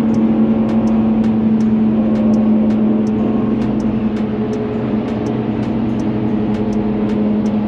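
Steady engine and road drone of a small pickup truck cruising at freeway speed, heard from inside the cabin, with a light ticking repeating about three times a second over it.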